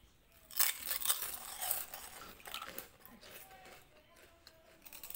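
Kittens chewing crunchy Kurkure snack pieces: a dense run of crackling crunches starting about half a second in and lasting over a second, then scattered smaller crunches.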